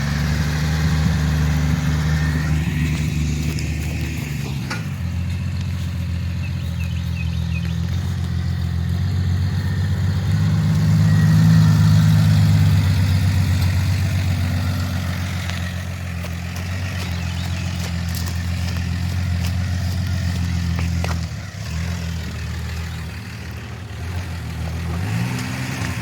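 1966 Dodge Dart's 225 slant-six engine running just after starting, heard through a newly fitted muffler with no tailpipe on it. It settles into a steady idle, and the engine speed rises near the end.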